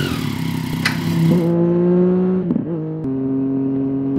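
Motorcycle engine running under acceleration, its pitch creeping upward and then dropping abruptly a little after three seconds in, as at a gear change, with a quick blip just before; a sharp knock at the very start.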